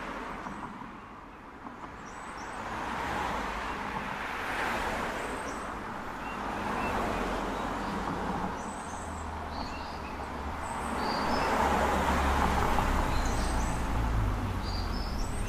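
Outdoor street ambience: road traffic passing, its noise swelling and fading as vehicles go by, with a few short bird chirps over it. A deeper rumble builds near the end.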